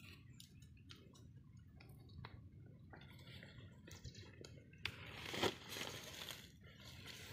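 Faint scattered rustling and crunching as a stiff lay-flat canvas hose is handled on dry ground among brush, with a short louder rustle about five seconds in.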